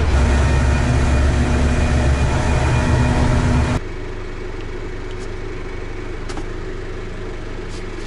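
Burlak 6x6 all-terrain vehicle heard from inside its cab while driving: a loud, low rumble with a steady hum. A little under four seconds in it drops suddenly to a quieter, even drone.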